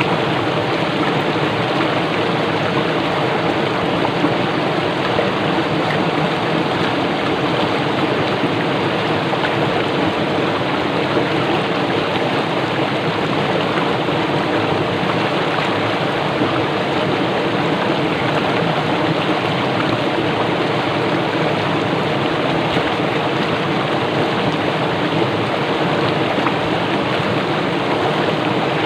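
Fast-flowing stream water rushing over and striking rocks, a steady, unbroken rush.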